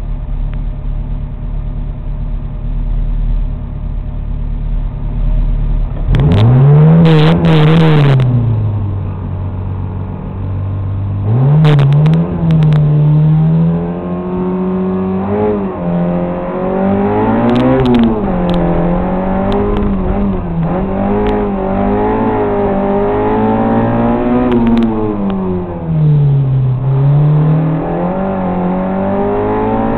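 Autobianchi A112's four-cylinder engine heard from inside the cabin: idling steadily, revved hard twice at the start line, then accelerating away with the revs repeatedly climbing and dropping through the gear changes.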